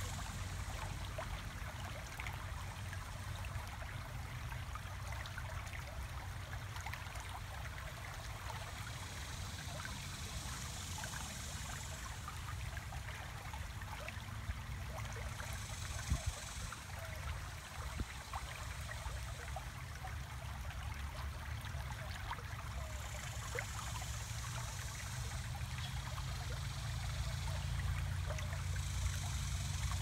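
Shallow creek water running steadily through a concrete culvert, a continuous babble with small splashes over a low rumble. A couple of faint knocks come about halfway through.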